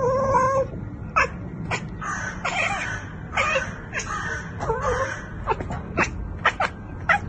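A cat chattering at the window: a short pitched call at the start, then a long irregular run of quick clicking chirps, a few each second.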